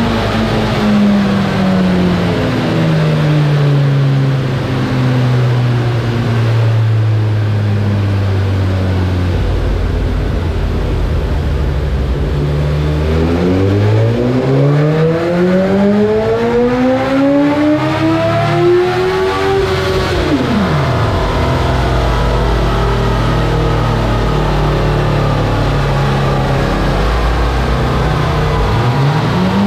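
Suzuki GSX-S1000 inline-four with a custom mid pipe and Akrapovic slip-on exhaust running on a dyno. Revs wind down from high to low over the first several seconds and hold low. Past the middle they climb steadily for about six seconds in a wide-open pull, then fall away sharply as the throttle is shut, and start rising again near the end.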